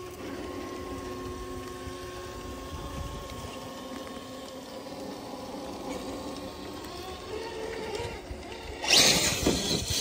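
The electric motor and gear drive of a six-wheeled RC crawler truck whining steadily as it crawls slowly over rock. Near the end, a loud, brief rushing noise cuts in.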